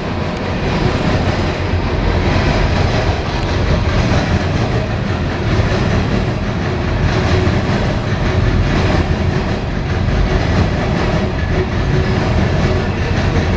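Coal train's cars rolling past close by: a steady, loud rumble of wheels on rail with clickety-clack over the rail joints.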